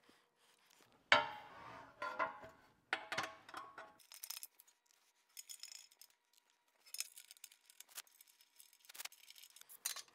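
Stainless steel brackets and bolts clinking, knocking and ringing against a powder-coated aluminum skid plate on a workbench, with a sharp knock about a second in, then quicker light clicks and scraping as the flathead bolts are fitted with a hand tool.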